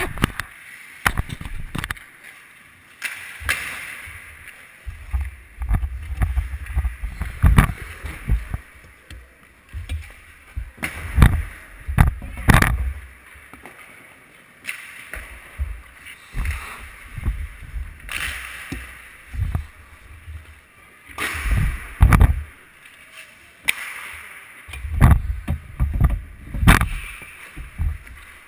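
Hockey rink sounds heard from a camera in the back of the net: skate blades scraping the ice and sharp, irregular knocks of sticks and pucks, with a few low rumbling thumps on the goal.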